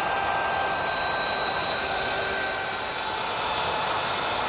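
Handheld router running at full speed with a roundover bit, routing a rounded edge along a cypress seat slat: a steady high-pitched whine over the noise of the cut.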